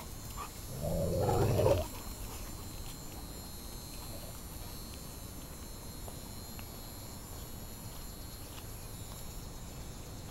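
A large dog gives one deep, drawn-out vocalization during rough play, about a second long and starting about a second in; the rest is faint outdoor background.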